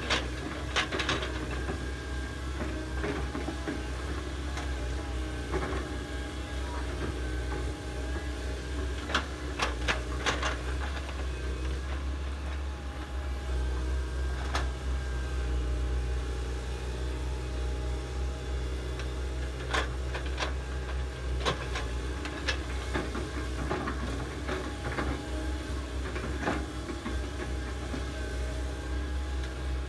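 Hydraulic excavators, the nearest a Komatsu, running their diesel engines steadily as they dig. A low drone carries through, with scattered sharp knocks now and then.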